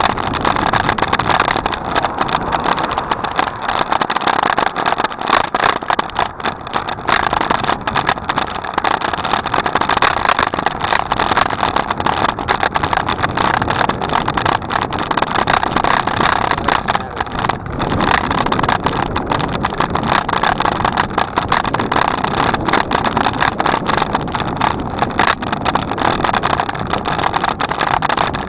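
Steady rushing noise of a bicycle in motion, with many small crackles running through it and no break.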